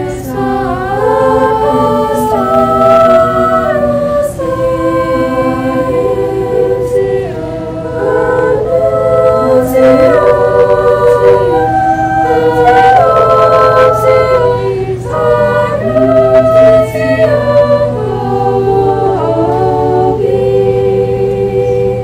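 A girls' triple trio singing a cappella in several-part harmony, moving between held chords with brief breaths between phrases.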